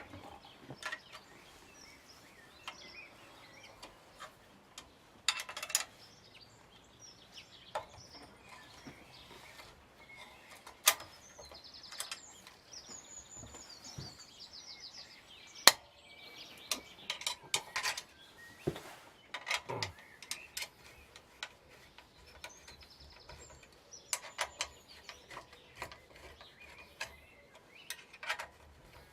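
Hand tools working on a motorcycle's exhaust mounting bolt: scattered metallic clicks and knocks, with a few short runs of rapid ratchet-like clicking. Faint bird chirps now and then.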